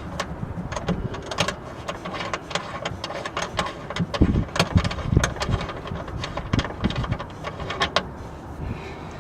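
Irregular small metal clicks and taps of a nut being worked off a battery cable terminal stud by hand and with a tool.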